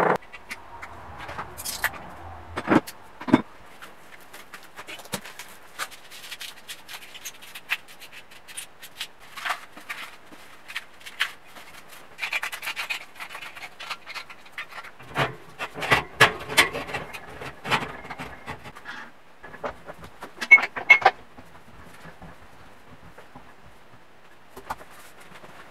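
Hand work on metal containers: scattered knocks, scrapes and rubbing, with a few sharp knocks about three seconds in and a louder cluster of knocks and scrapes around twenty seconds in.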